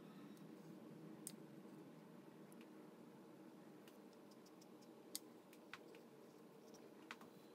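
Near silence: room tone with a few faint, sharp clicks, scattered unevenly, from a pencil on paper backed by a clipboard as guide lines are marked.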